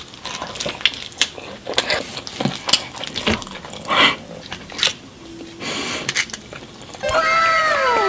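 Close-miked eating noises: chewing, smacking and clicks from someone eating pizza. About a second before the end, a pitched sound of several tones sliding downward together comes in, louder than the eating.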